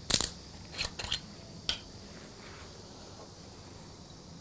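Aluminium screw cap of a green soju bottle being twisted open: a quick cluster of sharp clicks, then three or four more single clicks within the next two seconds as the cap's seal breaks.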